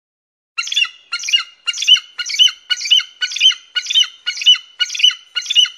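Bald eagle calling: a series of about eleven short, high, chattering calls, about two a second, starting about half a second in.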